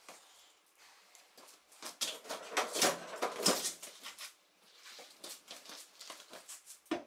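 Footsteps and scuffing on a concrete floor as a UTV wheel with a knobby tyre is picked up and rolled across it, with a dense run of rubbing and knocking about two to four seconds in.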